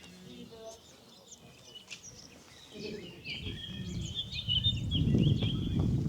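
Small birds chirping over quiet outdoor ambience. About halfway through, a louder low rumbling noise builds up and dominates.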